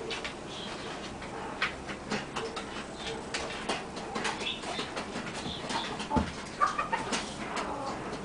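Barred Rock hen on a straw nest making soft, low clucking calls, mixed with many short rustles and clicks.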